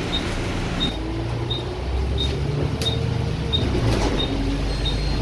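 Bus engine and drivetrain running and pulling harder, with a rising whine from about two seconds in, over the hiss of heavy rain. Short high beeps repeat about every 0.7 s throughout.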